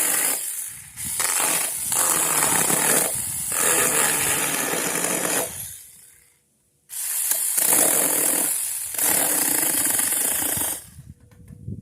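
A saw cutting through tree branches in long bursts of a few seconds each, with short breaks about a second in, around six seconds in and near nine seconds, stopping shortly before the end.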